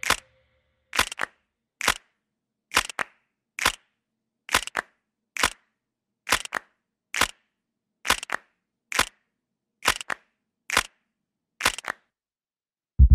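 A run of about a dozen sharp clicks, evenly spaced a little under a second apart, with dead silence between them.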